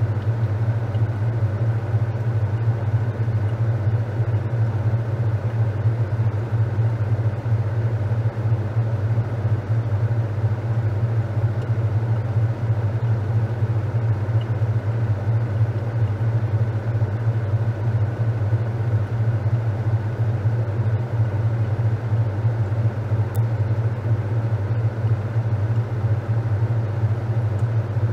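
Top-loading washing machine running with a steady low hum that does not change.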